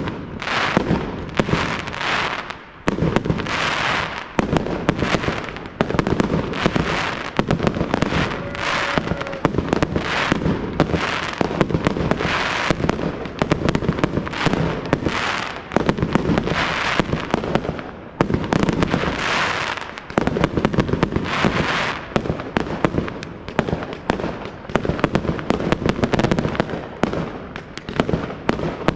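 Professional fireworks display: aerial shells launching and bursting in a dense, continuous barrage of sharp bangs and crackles, many a second, with only brief lulls.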